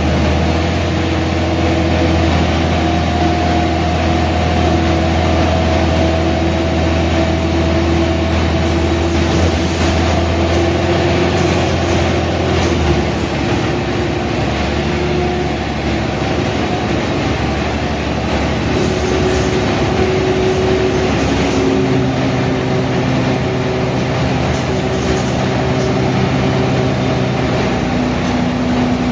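Mercedes-Benz O345 city bus running under way: a steady diesel drone with whining tones that drift in pitch. The low drone drops away about 13 seconds in, and a new, higher whine sets in about 22 seconds in.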